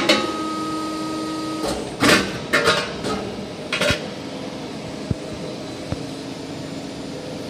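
CNC press brake bending a steel sheet: a sharp clunk as the punch presses the sheet into the V-die, then a steady whine for about a second and a half. Several metallic clangs of the bent sheet metal follow as it is handled, then two light ticks, over a steady machine hum.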